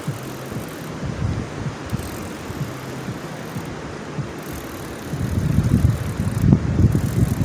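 Fishing reel being cranked, with rod-handling noise, while a hooked catfish pulls the rod hard over. The noise grows louder and rougher about five seconds in.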